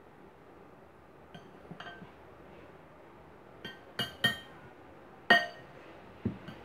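Metal spoon clinking against a glass mixing bowl while tossing salad: a handful of sharp clinks, the loudest a little past five seconds in, each ringing briefly.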